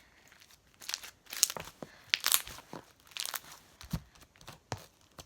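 Hands squishing and stretching a cream cheese slime that has small fidget spinners mixed into it, making irregular crackly pops that start about a second in.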